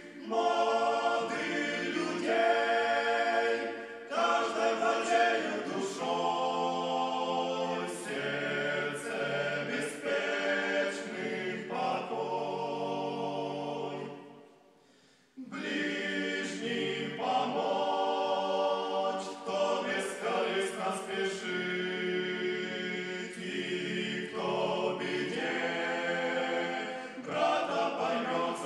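A group of voices singing a cappella in held chords, changing chord every second or few. The singing fades out about fourteen seconds in and comes back suddenly a second later.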